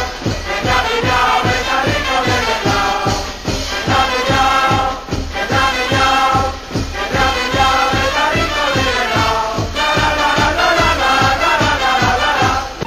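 Music with a fast, steady beat and several voices singing together.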